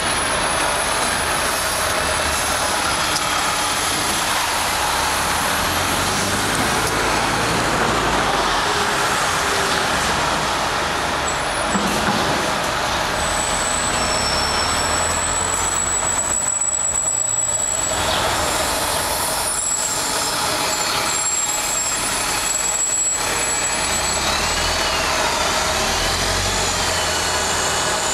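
City transit buses moving through an intersection: steady engine and road noise from a bus turning and pulling past, with a thin high whine over part of it. A second bus passes close near the end.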